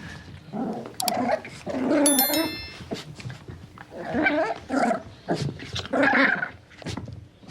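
A young puppy growling in a run of short, separate growls, one after another. A brief high-pitched squeak sounds about two seconds in.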